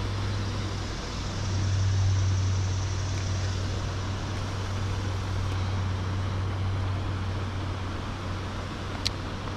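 Steady low hum with a wash of noise like road traffic, swelling about two seconds in and then easing off, and one sharp click near the end.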